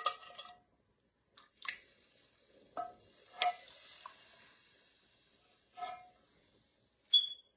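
A few single clinks of a utensil against a metal pan, each with a short ring, spaced a second or so apart, with a faint hiss in the middle, as the pan is deglazed with beef broth to loosen the browned bits.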